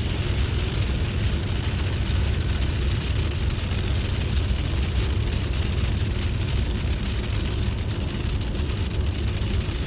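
Steady car-cabin noise: a low rumble with an even hiss over it, unchanging throughout.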